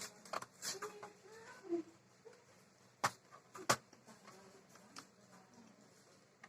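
Scattered sharp clicks and knocks from hands working on laptop hardware. Two louder clicks come about three seconds in.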